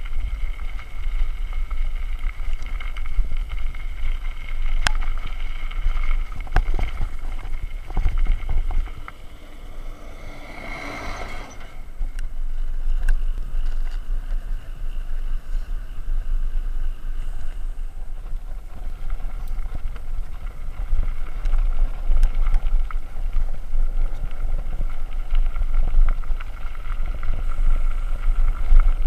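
Canyon Spectral AL mountain bike rolling over a gravel track, heard through a bike-mounted action camera: a steady rumble of tyres on loose stones with sharp knocks from bumps, and wind on the microphone. For a stretch the bike runs on smooth concrete, and the rumble grows again near the end back on gravel.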